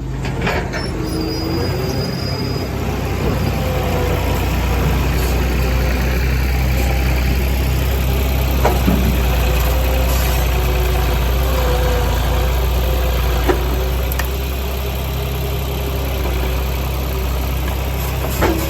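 Engine idling steadily, with a wavering whine over it and a few sharp metallic knocks.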